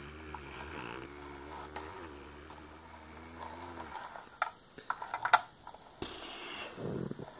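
A low, wavering humming drone made by mouth in imitation of a vehicle engine, then a run of sharp plastic clicks and knocks as the toy ambulance is handled and pushed across the play mat. Near the end comes a short vocal sound falling in pitch.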